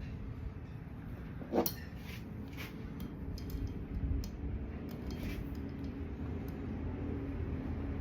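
Small metallic clinks and handling noises from tools and engine parts, with one short squeak about one and a half seconds in, over a steady low hum.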